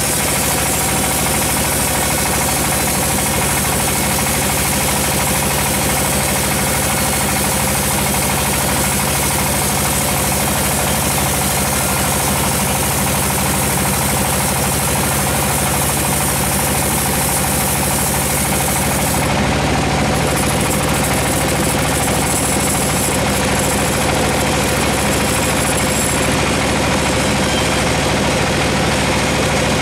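Large sawmill band saw cutting through a teak slab: the machine runs steadily with a hissing cut, and the hiss stops about two-thirds of the way through as the blade clears the wood, leaving the saw running free.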